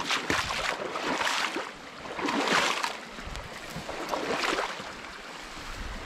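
Creek water splashing and sloshing in irregular swells over a steady running-water hiss.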